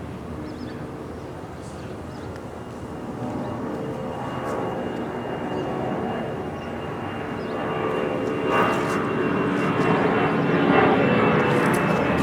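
A steady engine drone, far off at first, growing gradually louder.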